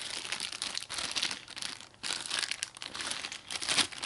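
Plastic packaging crinkling and rustling as hands work a bicycle shift lever out of its plastic bag over bubble wrap. It comes in irregular bursts, with a short lull about halfway and the loudest rustles near the end.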